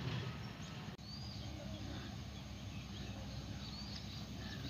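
Rural outdoor ambience: a steady low rumble with a few short, high bird chirps scattered through it, cutting out for an instant about a second in.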